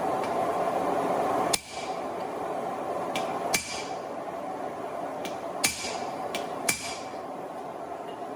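Hand hammer striking steel on an anvil while a hammer head is forged: about seven sharp metallic blows at an uneven pace, each ringing briefly, some heavier than others. A steady roar runs underneath.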